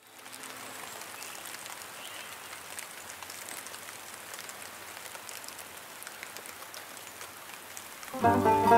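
Steady patter of rain. Plucked-string music comes in loudly near the end.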